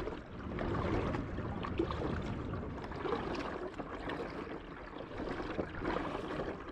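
Kayak paddling: a double-bladed paddle dipping into the water stroke after stroke, with uneven splashing and trickling water.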